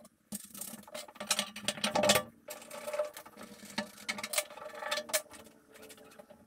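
Irregular knocks and clicks of wooden boards and bolts being handled and fitted into place, louder about two seconds in and thinning out after about five seconds.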